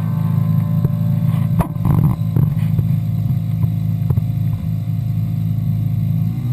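Inflatable boat's motor running steadily with a low hum, with a few sharp knocks.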